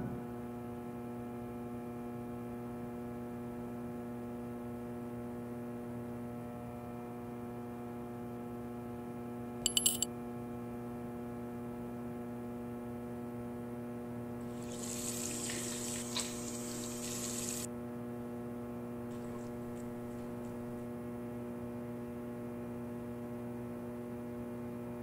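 Steady electrical mains hum with a stack of overtones throughout. A few sharp clicks come about ten seconds in, and water runs from a bathroom sink tap for about three seconds shortly after.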